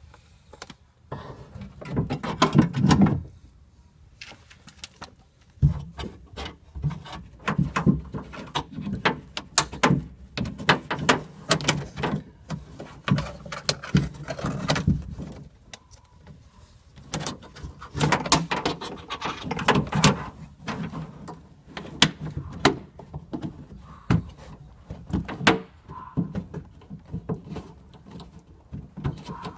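Irregular clicks, knocks and rattles from inside a Nissan Murano Z51 front door as hands fit the outside handle's opening cable and rod back onto the lock mechanism, plastic parts and rods striking the sheet-metal door, with rustling between the knocks.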